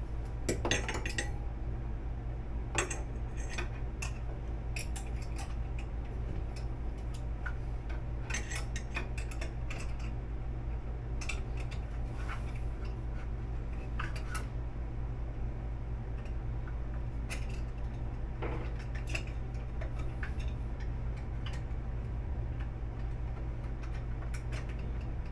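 Scattered light metallic clinks and clicks over a steady low hum.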